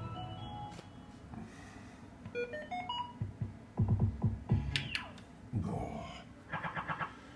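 Electronic beeps and jingles from an ADP Sonne slot machine, a German money-gaming machine: a quick rising run of beeps about two seconds in, a sharp falling sweep near the middle, and a fast repeating beep pattern near the end, with a few low knocks in between.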